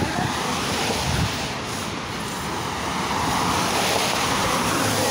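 Street traffic on wet pavement: a steady hiss of car tyres on the wet road, growing louder in the second half as a car passes.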